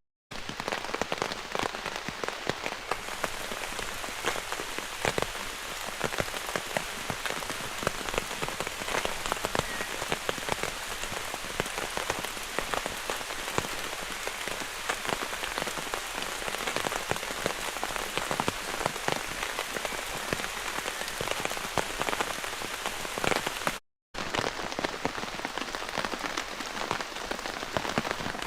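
Heavy rain pattering on a taut camping tarp: a dense, steady hiss of rain with countless individual drops ticking on the fabric. It breaks off for a split second about two-thirds of the way through.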